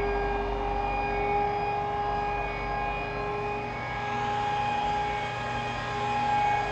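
Electric rotary polisher buffing a scratch out of glass, its motor running at a steady speed with a high, even whine.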